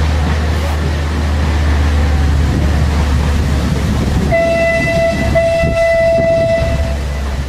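A horn sounds one long steady note for nearly three seconds, starting a little past halfway, over a steady low rumble.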